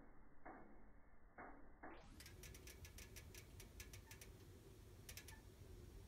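Faint crackling of a wood fire burning in a fireplace: a few dull pops in the first two seconds, then many quick, sharp little ticks.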